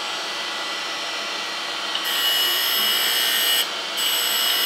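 Surface grinder running with its diamond wheel spinning. About two seconds in, a high hiss with a whine sets in as the wheel skims the inked plate; it stops briefly, then starts again.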